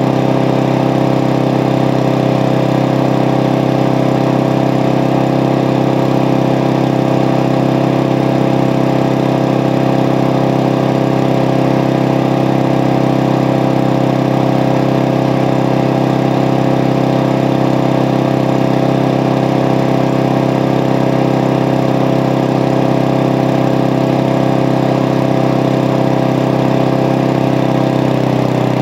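Small single-cylinder push lawn mower engine, fuelled with off-road diesel, running steadily at a constant speed.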